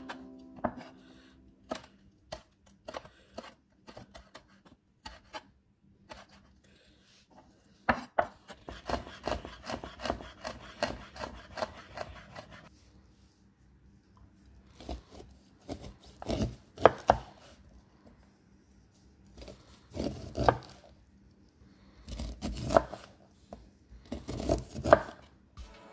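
Chef's knife cutting on a wooden chopping board: single slicing strokes through a red chilli about every half second, then a run of fast, close chops as the chilli is minced. Later come clusters of louder cuts; near the end the knife is shearing kernels off a corn cob.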